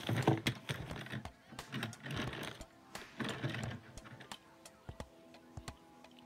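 Small wheels of a Hot Wheels die-cast toy car rattling and clicking as the car is pushed over the studs of a Lego baseplate, in three short runs, over faint background music.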